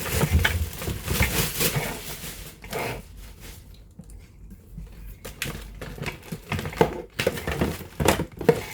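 Plastic parts of a stick vacuum cleaner being handled and fitted together: rustling and crinkling for the first few seconds, then scattered clicks and knocks.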